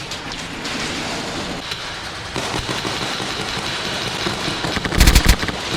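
Steady rustling noise, then about five seconds in a quick burst of five or six sharp shots from an airsoft gun fired close by.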